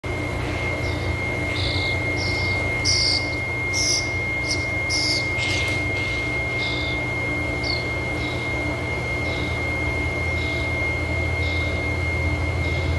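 Small birds chirping: a run of short, high chirps about two a second, loudest in the first few seconds and fainter after, over a steady low hum and a thin high steady tone.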